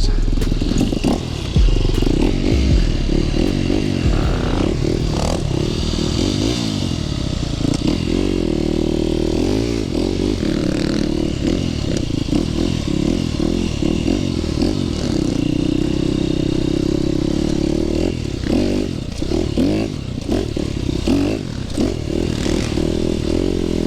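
Dirt bike engine running and being ridden, its pitch rising and falling with the throttle.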